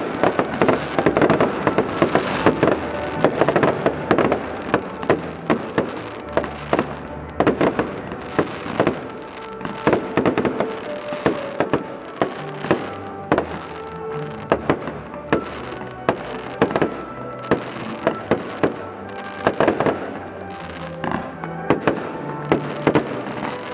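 Fireworks finale: a dense run of bangs and crackles in the first few seconds, then separate shell bursts about one or two a second. Music that accompanies the display plays underneath.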